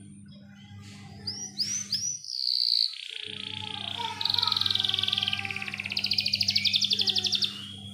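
Domestic canary singing: a few quick rising-and-falling whistled notes about a second in, then a trill and a long, loud roll of rapid repeated high notes that ends near the end. A low steady hum runs underneath and drops out briefly after two seconds.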